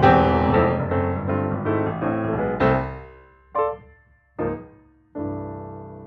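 Background piano music: a run of struck chords, then two short single notes and a last chord left ringing and fading.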